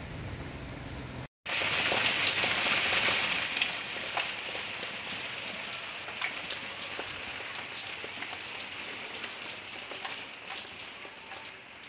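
A low, steady rush cuts off about a second in. Then rain falls steadily, with water dripping off the roof edges in many separate drops, heaviest in the first couple of seconds.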